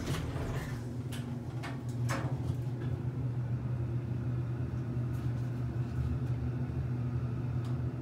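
Passenger elevator doors sliding shut, with a knock about two seconds in, then a steady low hum as the car travels between floors.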